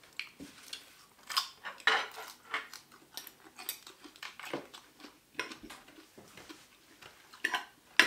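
Metal fork and spoon clinking and scraping against a ceramic plate while eating, in many short, irregular clinks.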